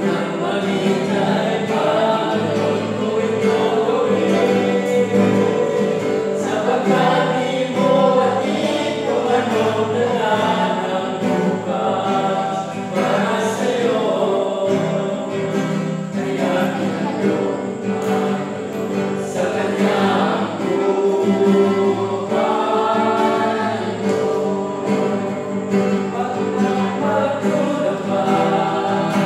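Male vocal quartet singing a Filipino-language gospel song in harmony, accompanied by a strummed acoustic guitar.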